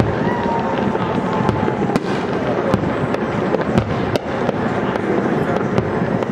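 Aerial firework shells bursting in a continuous barrage: a dense run of booms and crackling with many sharp reports, with no break.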